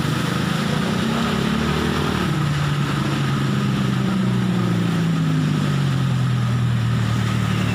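A motor vehicle's engine running, its pitch sinking slowly over several seconds, over a steady hiss of heavy rain.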